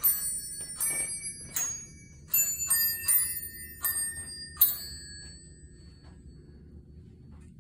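Holiday glockenspiel chimes playing a Christmas tune on their own, one bell note struck at a time at about one to two notes a second, each note ringing on. The tune stops about five seconds in.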